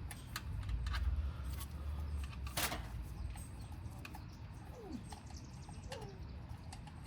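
Scattered clicks and knocks of tools and parts being handled, with one short, louder scraping noise a little before the middle and two faint squeaks near the end.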